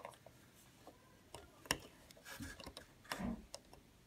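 Light plastic clicks and taps as a small white cable connector is worked into the socket on a 3D printer's stepper motor. There are a handful of short ticks, the sharpest about a second and a half in.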